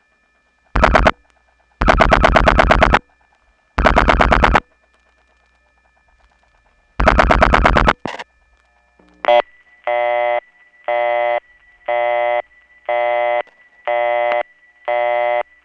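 Telephone line recording: four bursts of rapid dial-pulse clicking, then a click as the call connects and a busy signal beeping about once a second. A thin steady whine runs under the busy tone: the signature noise of the Woodland Hills No. 5 crossbar central office.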